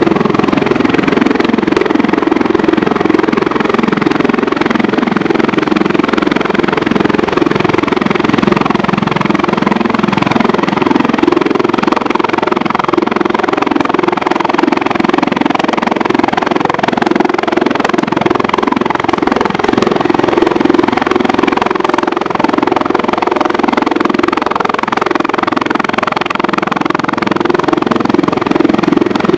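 Agusta-Bell 412 rescue helicopter hovering close by, its rotors and turbines running steadily with a rapid, even rotor beat.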